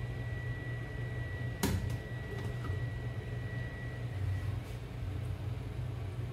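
One sharp click of a metal spoon, taking pizza sauce onto dough, about a second and a half in. Under it runs a steady low hum, and a faint high tone stops about four and a half seconds in.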